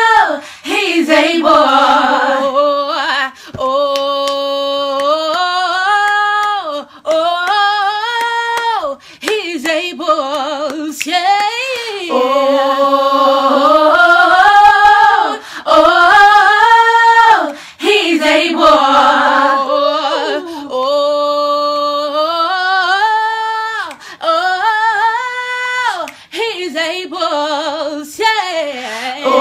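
One woman's voice multitracked into a multi-part a cappella gospel harmony, singing long held, gliding chords on vowels in phrases of a few seconds with short breaks between them.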